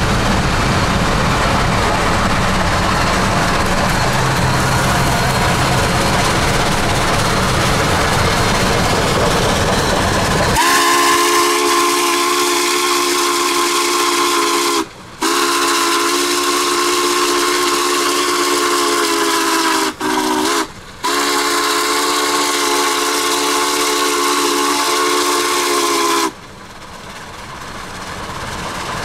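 Steady road and wind noise of a car driving alongside the train. About a third of the way in, Union Pacific 844's steam whistle sounds a long chord of several steady notes for about fifteen seconds, broken by three brief gaps, then cuts off.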